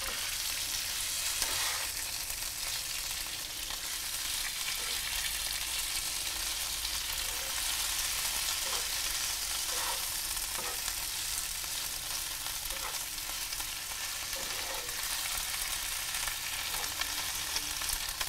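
Spinach and bacon sizzling in hot oil in a frying pan, the spinach wilting in the water left on it from washing. A wooden spatula stirs and turns the leaves, with occasional light taps against the pan.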